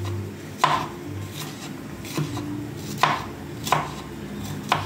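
Kitchen knife chopping green bell pepper on a wooden chopping board: about five sharp, unevenly spaced cuts.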